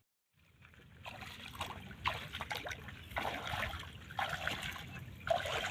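Water trickling and splashing in shallow water, with four splashy bursts about a second apart after a brief dropout at the start.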